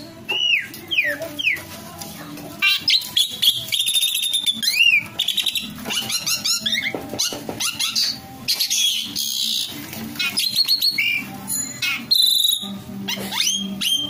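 Asian pied starling singing a loud, varied song: quick falling and rising whistles mixed with harsh rasping chatter, in bursts through the whole stretch.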